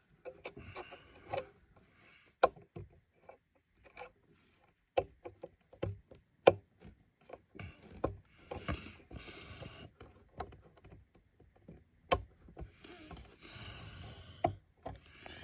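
Scattered sharp clicks and taps of hands working inside a wooden guitar-amp cabinet, pushing the speaker wire connectors onto the new speaker's terminals, with soft rustling in between.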